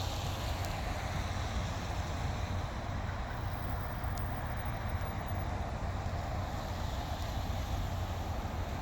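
Steady low rumble of a vehicle engine under a constant hiss, with no distinct events.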